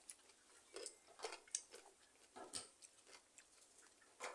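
A person chewing a mouthful of raw cucumber: faint, irregular crunches.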